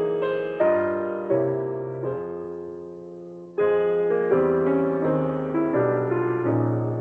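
Slow, gentle piano music: notes and chords struck and left to ring and fade, softening in the middle before a louder chord about halfway through.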